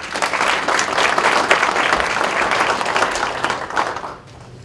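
Audience applauding, a dense patter of clapping that dies away about four seconds in.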